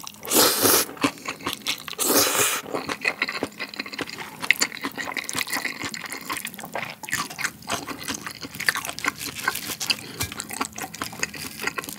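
Close-miked person slurping spicy saucy instant jjolmyeon noodles, two long sucking slurps in the first three seconds, then chewing them with a run of small wet, sticky mouth clicks.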